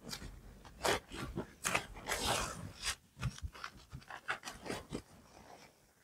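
Sushi being rolled by hand in a rolling mat: irregular rubbing, scraping and light clicks, with a louder rustle about two seconds in.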